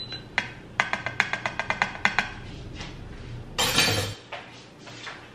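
A spoon stirring a drink in a cup, clinking quickly against the cup's side, about six clinks a second for roughly two seconds. About three and a half seconds in comes a short, noisy clatter.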